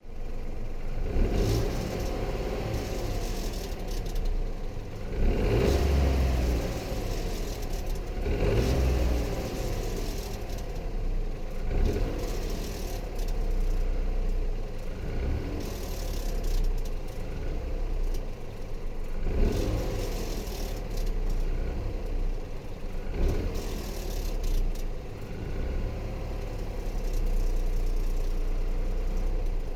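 Dacia Eco-G 100's 1.0-litre turbocharged three-cylinder engine running while the car decelerates, the noise swelling and easing again every few seconds. This is the deceleration noise the owner is recording as a concern.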